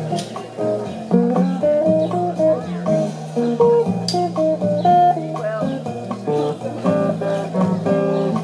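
Guitar playing an instrumental bossa nova passage: a plucked melody line over chords and bass notes.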